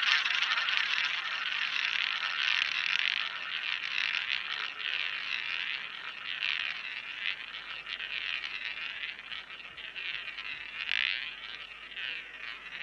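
Roulette ball rolling around the track of a wooden roulette wheel: a steady whir that swells about once a lap, the swells coming further apart as it slowly fades and the ball loses speed.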